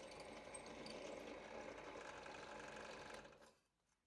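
Bench drill press motor running faintly while its bit bores through maple handle scales. The sound cuts off about three seconds in.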